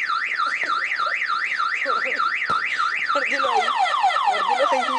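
Car alarm sounding: a tone warbling up and down about four times a second, changing about three seconds in to a faster run of falling chirps.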